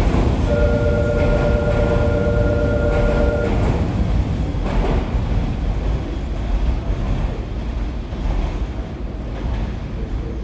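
Fukuoka City Subway 1000-series electric train (Hitachi IGBT VVVF drive) running away from a station, its rumble and wheel noise fading as it pulls off. A steady whine of several tones sounds for about three seconds near the start.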